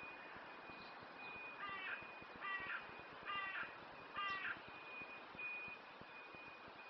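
A crow cawing four times in a row, a little under a second apart.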